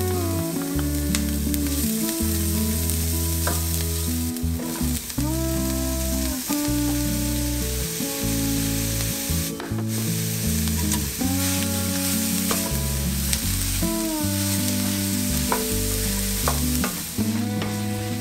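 Onion, garlic and sliced mushrooms sizzling as they fry in a stainless steel skillet, stirred and pushed around with a wooden spatula. A steady frying hiss runs throughout, with soft instrumental background music under it.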